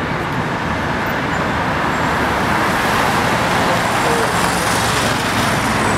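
Steady road traffic noise from passing cars, growing a little louder about halfway through.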